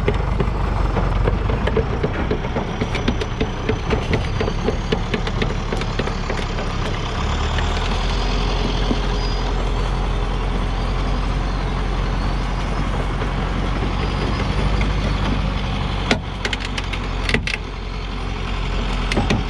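Diesel engine of a heavily loaded Hoa Mai log truck pulling under load as it creeps forward through mud on a chained rear tyre, with scattered clicks and clanks and a cluster of them near the end.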